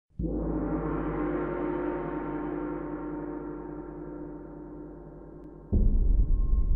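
A gong struck once, ringing with many overtones and slowly fading. Near the end, a sudden, louder deep low rumble cuts in.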